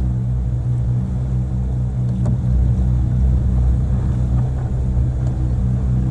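Motorboat engine running at a steady speed with the boat underway: a low, even drone that does not change.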